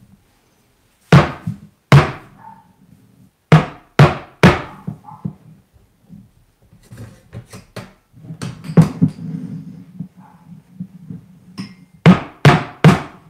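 Stainless steel milk pitcher of freshly steamed milk knocked hard on the wooden countertop, in groups of sharp knocks. The last three come in quick succession near the end, with quieter handling noise in between.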